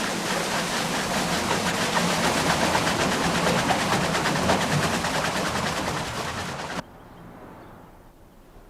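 Water-powered sawmill machinery running with a fast, even, rattling clatter, like a train's clickety-clack. It cuts off abruptly near the end.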